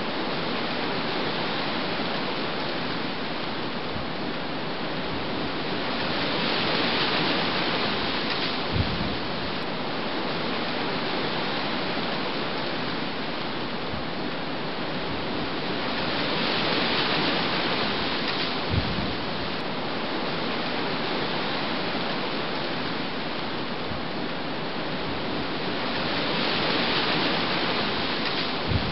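Steady rushing noise of wind and rough sea, swelling and fading about every ten seconds. Each swell ends in a short low thump, and the cycle repeats exactly, like a looped storm recording.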